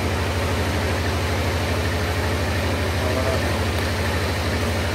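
Engine running steadily off-screen, a low, even throbbing hum that does not change.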